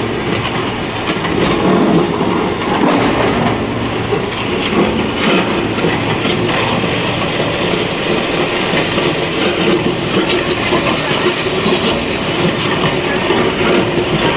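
Horizontal concrete mixer running, a steady loud mechanical churn with constant clattering and a continuous hum.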